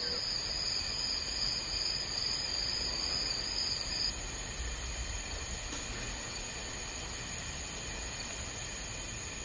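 Night chorus of crickets and other insects: several steady trills at different pitches over a fast, even high-pitched pulsing, with one trill dropping out about four seconds in.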